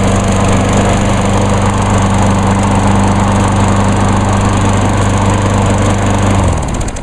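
Self-propelled walk-behind mower's Briggs & Stratton 675 series 190 cc engine running steadily, then winding down and stopping near the end.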